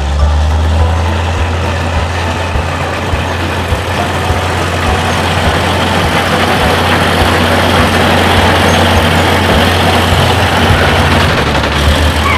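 Steady motor noise: a low hum under an even rushing sound, holding level throughout.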